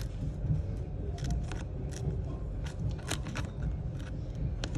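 Thin metal pry blade clicking and scraping in the seam between an iPhone 11's cracked display and its frame, as the glued screen is pried away. The small sharp clicks come irregularly, a cluster of them a little past the middle, over a steady low rumble.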